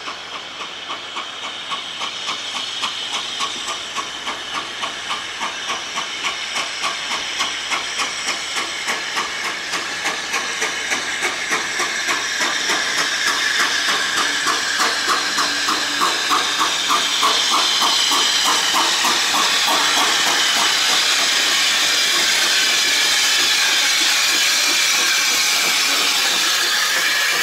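Hunslet 0-6-0 saddle-tank steam locomotive approaching at low speed, its rhythmic chuffs, about three a second, growing louder. In the second half the beats fade under a loud, steady hiss of steam escaping around the cylinders as the engine draws alongside.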